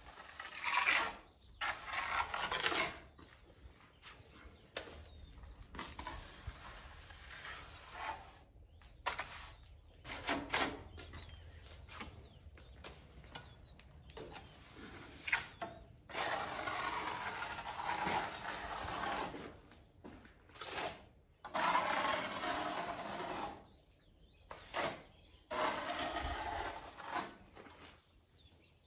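Trowel scraping and spreading wet cement mortar across a wall, in rough strokes of one to three seconds with short pauses and a few clicks between them.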